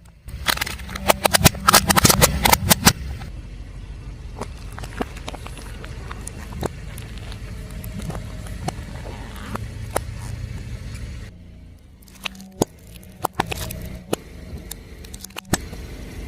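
A car tyre rolling over and crushing crunchy objects: a dense run of cracks and crackles for about the first three seconds, then the car's low running sound with scattered snaps, and more cracks after a short break near the end.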